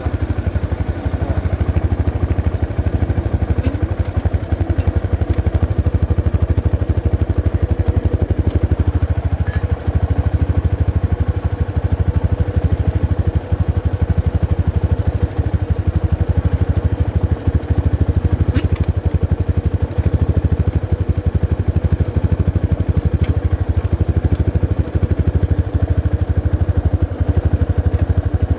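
Motorcycle engine running steadily with the rear wheel turning while the rear brake is pressed by foot, drawing out a steady noise from the rear brake pads. According to the owner, the pads have not bedded in a month after replacement, and he blames water soaking them.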